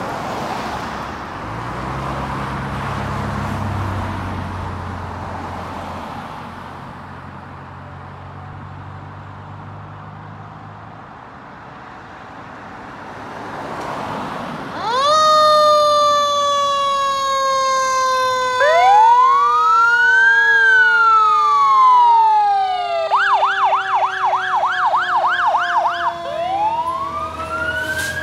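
Fire engine moving off with an engine rumble, then about halfway its sirens start. A mechanical siren spins up sharply and slowly winds down while an electronic siren wails, switches to a fast yelp for a few seconds, then goes back to the wail near the end.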